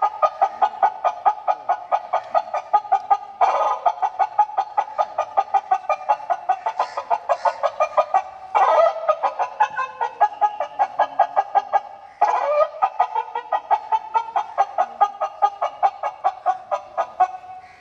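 Sarinja (sarinda), a bowed folk fiddle of West Bengal, played solo in quick short bow strokes, about four or five pulsing, nasal notes a second around one pitch. The tune comes in phrases that break off and start again three times.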